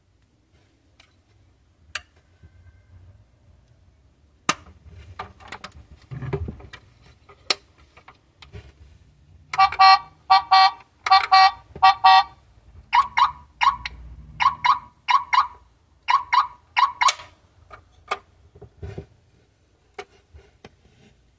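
Toy horn of a 1:18 die-cast Porsche Panamera model, sounding from its small speaker: four loud honks in quick succession about ten seconds in, then a run of about eight short beeps. Light plastic clicks from the model's doors and parts being handled come first.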